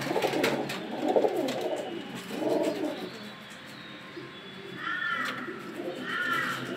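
Domestic hen pigeons cooing in a small loft, one low coo after another with some overlap, and two short higher calls near the end.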